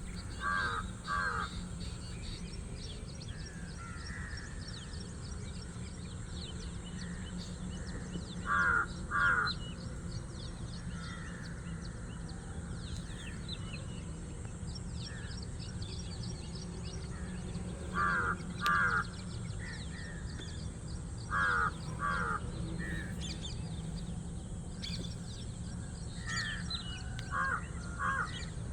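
Birds calling: loud calls in pairs recur every few seconds over steady chirping of smaller birds, with a constant low hum underneath.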